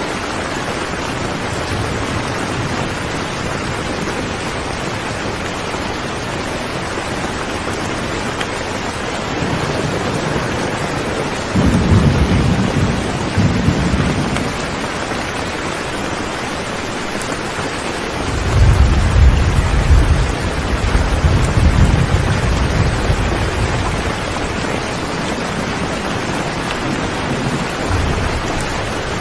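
Steady rain hissing, with low rolls of thunder rumbling in twice, the second longer than the first.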